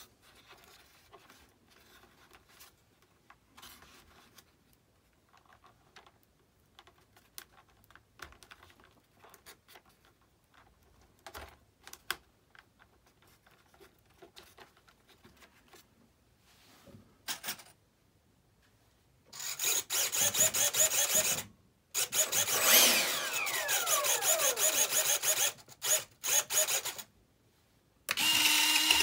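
Electric retract landing-gear units of a model jet whirring in several runs of one to three seconds as the gear is cycled, one run with a steeply falling whine. The gear is not going up and down properly. Before that, only faint clicks of handling.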